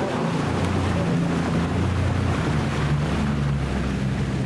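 A small motorboat's engine runs under a steady rush of wind and water, and its note steps down in pitch a few times as the boat slows toward the landing.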